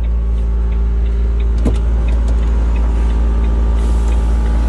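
Semi-truck's diesel engine idling steadily, heard from inside the cab, with a faint regular ticking over it and a couple of short clicks about a third of the way in.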